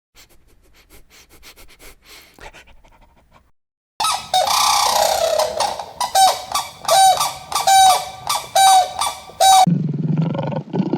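Animal calls: from about four seconds in, a loud series of short, repeated calls, about two a second, after faint ticking at the start. Near the end, a deep roar takes over.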